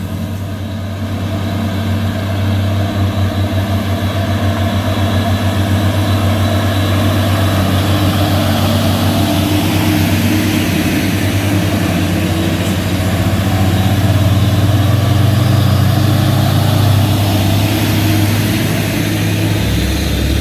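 Heavy truck diesel engine labouring at low revs, a loud steady drone with a fast throb. Its pitch climbs a little and then drops back about three-quarters of the way through.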